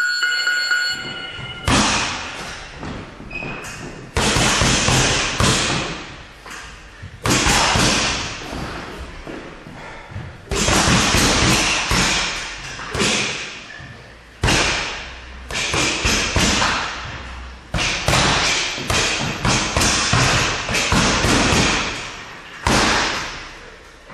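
Boxing gloves hitting a double-end ball in rapid flurries of punches, with the ball knocking back and forth and short pauses between combinations. A brief ringing tone, the round timer, sounds at the very start.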